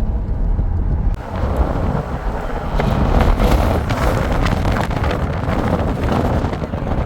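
Wind rushing and buffeting the microphone over the low rumble of a moving vehicle, the wind noise growing louder about a second in.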